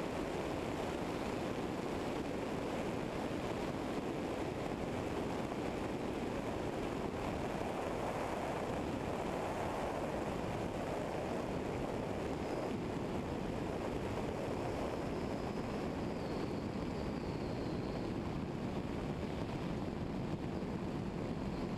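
Eurostar EV97 ultralight aircraft taxiing with its engine at idle: a steady engine drone mixed with wind noise on the wing-mounted microphone.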